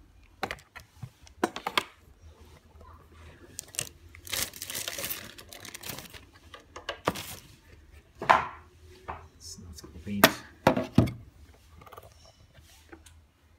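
Unboxing handling noises: packaging rustling in short bursts, with scattered sharp knocks and clicks as the plastic power strip is taken out and handled, the loudest knocks about eight and ten seconds in.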